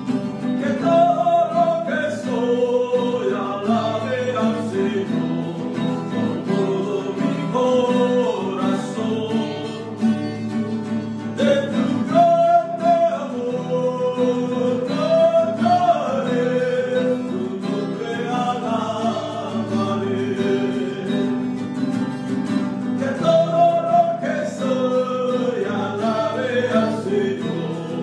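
A man singing a Spanish-language worship song into a microphone while strumming chords on an acoustic guitar.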